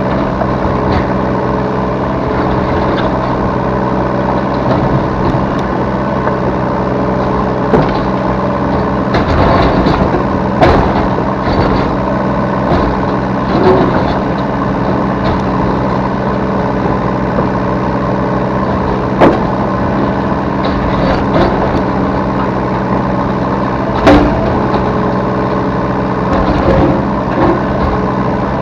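Yanmar B3 Sigma 3-ton mini excavator's diesel engine running steadily under digging and loading work, heard from the operator's seat. A few sharp knocks and clanks stand out over it, the clearest about eight, eleven, nineteen and twenty-four seconds in.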